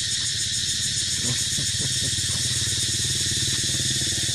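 A steady low mechanical drone, like an idling motor, under a constant high hiss, with a few faint short chirps.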